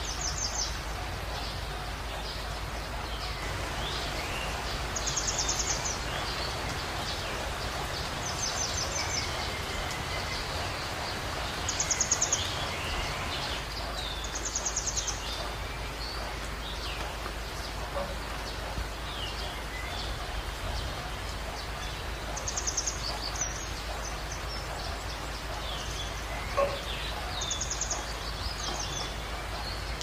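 Steady heavy rain falling, with wild birds chirping over it. One bird gives a short, rapid, high-pitched trill every few seconds, and other birds add scattered small chirps.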